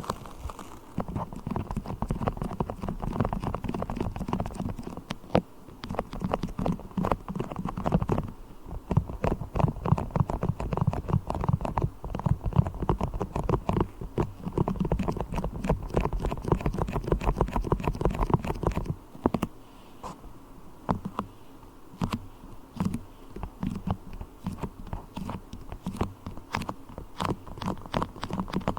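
Fingers working sticky beeswax, giving a dense run of crackling, sticky clicks and soft thumps. About two-thirds of the way through it turns lighter and sparser.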